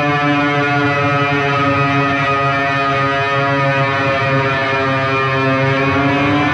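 Electric guitar sustained by an EBow, run through delay and reverb: long held notes overlap into a steady ambient pad.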